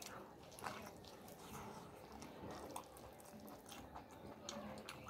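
Chewing and biting into cooked mutton pulled off the leg bone, heard as irregular wet smacks and sharp little clicks.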